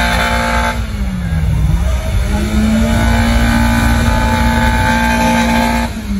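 A car engine revved and held at a steady high pitch. The revs drop away about a second in, are brought back up and held for several seconds, then fall again near the end.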